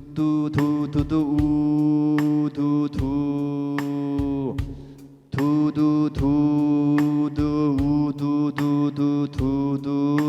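A man vocalizing a melody's rhythm on repeated "du-du-du" syllables at one near-steady pitch, reading the beats of a score aloud (rhythm sight-singing). Two phrases, with a short breath pause a little before the middle.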